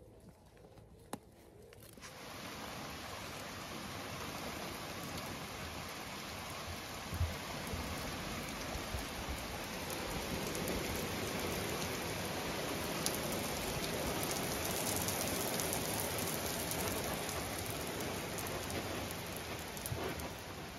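Steady rain falling on stone paving. It comes in about two seconds in and grows slightly louder toward the middle.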